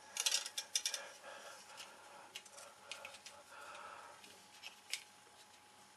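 Light clicks and taps of a thin metal wire being pushed through a hole in a plastic model base and handled, a quick run of clicks in the first second and a few single ticks after.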